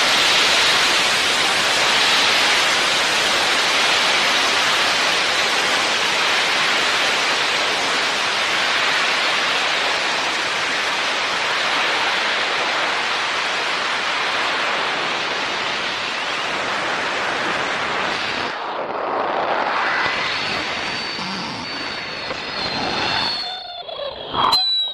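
A steady rushing hiss. About eighteen seconds in it thins out, a faint high whine comes in a little later, and the sound breaks up into crackles near the end.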